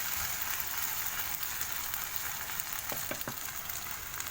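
Soy-sauce mixture sizzling steadily in a frying pan over lowered heat, with a crackling hiss and a few soft clicks about three seconds in.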